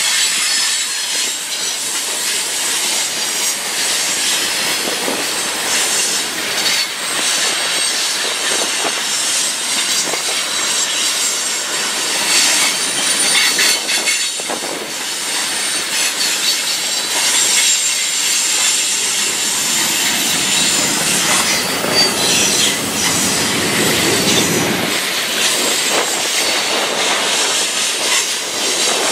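Freight train rolling past, its steel wheels squealing against the rails with some clatter from the cars.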